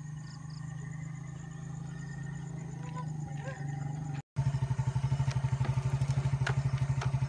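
Motorcycle engine running, steady and fairly quiet at first; after a brief dropout just past four seconds it is much louder and close by, running with a fast, even pulse.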